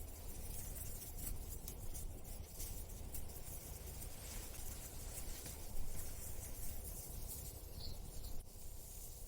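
Steady scratchy rustling and scraping over a low rumble, with scattered light clicks: the sound of a meerkat scrabbling through a soil burrow, as rendered in AI-generated audio.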